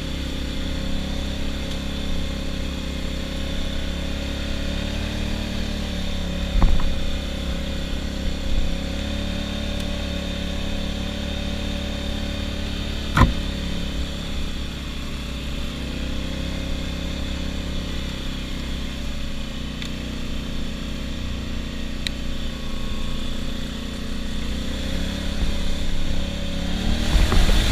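ATV engine running at a steady, moderate speed, with two sharp knocks. Near the end it picks up in pitch and loudness as the throttle opens.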